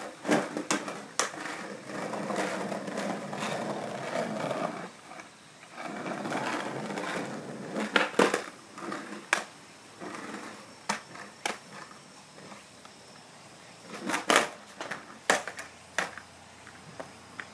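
Skateboard wheels rolling over rough concrete, broken by sharp wooden clacks of the tail popping and the board slapping down, several times over, the loudest about eight seconds in.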